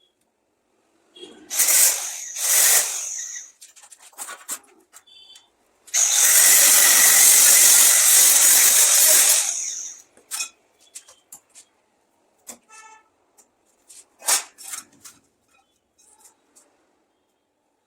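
Electric arc welding on sheet steel: two short bursts of arc crackle, then a steady weld of about four seconds. Sharp metallic clicks and taps fall in between and after.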